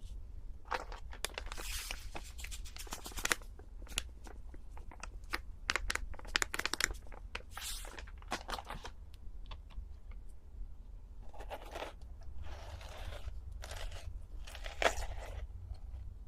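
Close-miked eating ASMR sounds: crinkling, tearing and crunching of food and its wrapping, in a run of irregular crackles and short noisy bursts.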